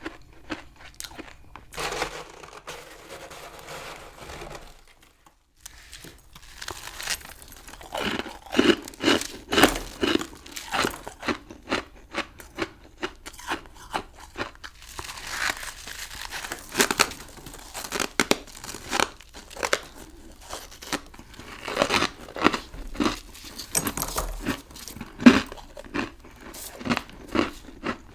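Close-up crunching and chewing of a chunk of humidifier frost, with many sharp, irregular crunches. A softer rustling crunch comes about two seconds in, and the dense crunching takes over from about seven seconds in.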